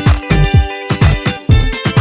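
Upbeat background music with a steady drum beat, bass and guitar.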